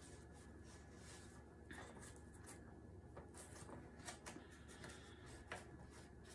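Near silence with a few faint taps and scrapes of hands handling a picture frame and its cardboard backing, the sharpest about five and a half seconds in.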